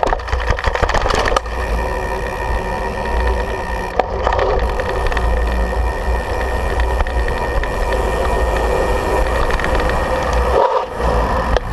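Mountain bike rattling and jolting for about the first second and a half as it comes off the steps, then the steady rolling noise of knobby tyres on pavement with rattle from the bike, picked up by a camera mounted on the handlebars.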